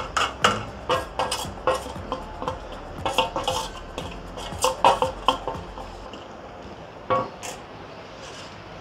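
Metal kitchenware clinking and scraping: a steel plate and spoon knocking against the rim of a metal cooking pot (degh) as powdered spices are scraped off into it. A quick run of sharp clinks, about three or four a second, lasts some six seconds, then one more clink comes near the end.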